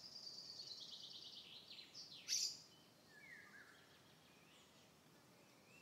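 A songbird singing faintly: a quick run of high notes falling in pitch, ending about two seconds in with a short, sharp flourish, followed by a single soft chirp.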